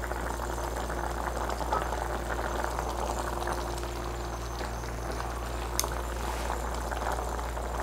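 Chicken and daikon stew simmering in a stainless steel pot: a steady fine bubbling of the broth, with a couple of faint clicks.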